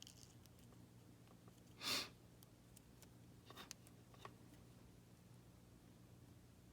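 Near silence over a low steady hum, broken about two seconds in by one short exhaled breath, followed by a few faint clicks.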